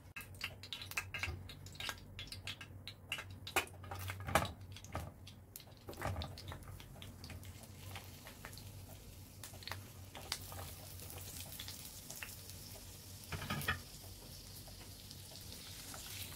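Raw potato chunks dropped into a nonstick frying pan with oil, a quick run of knocks and clatters over the first several seconds. A sizzle of frying oil then builds and holds, with another short clatter a little past halfway as sliced carrots go in.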